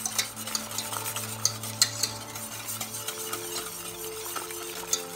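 Thick homemade barbecue sauce simmering and being stirred in a pan, with irregular small clicks and pops over a steady soft hiss.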